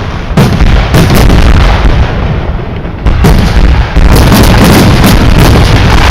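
Fireworks display: rapid aerial bursts booming and crackling one after another. They thin out briefly about two seconds in, then merge into a dense, continuous barrage.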